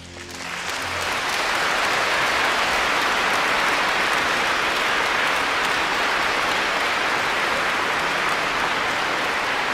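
Concert audience applauding, swelling up within the first second or so as the final piano chord dies away, then clapping steadily.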